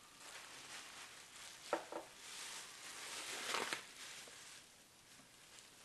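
Plastic bubble wrap crinkling faintly as it is pulled off a small picture frame by hand. There is a short sharp sound about two seconds in, and the crinkling grows busier around the middle before easing off.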